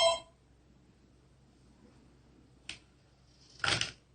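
The last moment of an electronic telephone ringtone cuts off at the start. Then a single small click almost three seconds in, and a short clatter of clicks just after, as the loose laptop screen panel is handled.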